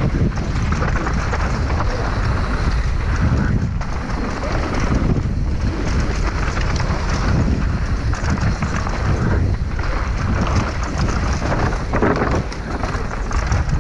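Wind buffeting a helmet-mounted action camera's microphone at speed on a downhill mountain bike, mixed with tyres rolling over loose dirt and stones and the bike clattering over bumps.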